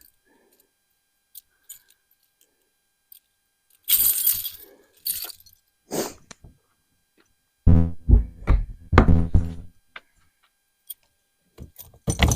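Scattered thunks and clatter of objects being handled in a toolbox, with a longer run of heavier, ringing knocks about two-thirds of the way in.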